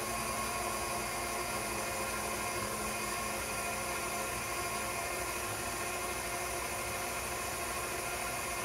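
KitchenAid stand mixer running steadily, driving its meat-grinder and sausage-stuffer attachment as ground sausage meat is pushed down the feed tube: an even motor whine with several steady pitched tones.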